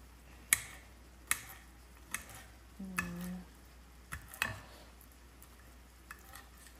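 Kitchen knife cutting raw shrimp on a ceramic plate, the blade clicking sharply against the plate about once a second, with two quick clicks close together past the middle. A short low hum comes about halfway through.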